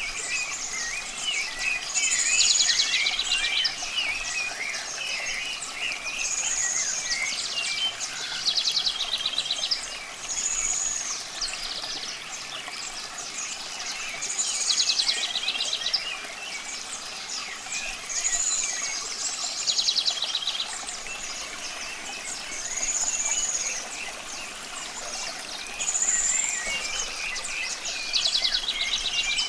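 Several birds singing and chirping. One song repeats about every four seconds: a high, slurred note followed by a fast trill. Running water makes a steady hiss underneath.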